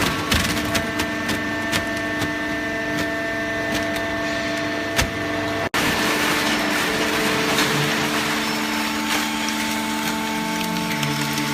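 Horizontal hydraulic baler running on waste paper: the steady hum of its hydraulic pump and motor, with scattered clicks and knocks. The sound drops out for an instant a little over halfway through.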